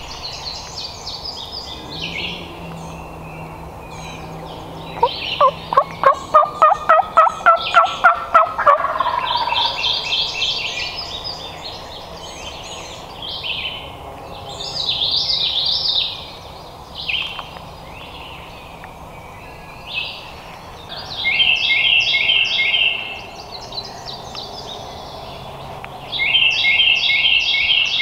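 Wild turkey gobbling about five seconds in, a loud rapid rattle that climbs in pitch over a few seconds. Songbirds sing high chirping phrases throughout.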